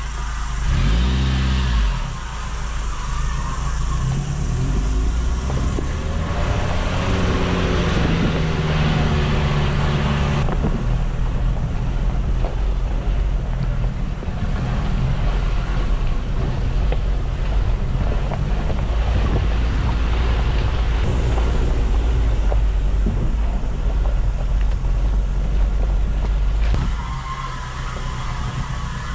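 Mitsubishi L300 Delica van's engine running as the van crawls over a rough bush track, its note rising for a few seconds before dropping back about ten seconds in, with tyres crunching over gravel and rocks.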